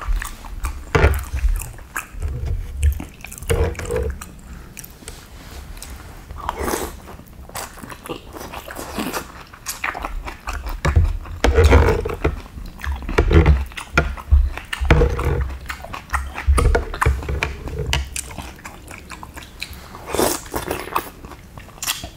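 Close-up chewing and slurping of bakso, Indonesian meatball soup, with irregular clicks of a spoon and chopsticks against the bowl.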